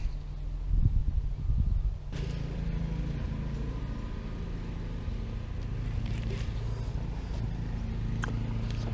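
Small boat motor running with a steady low hum, after a couple of seconds of louder, uneven rumbling.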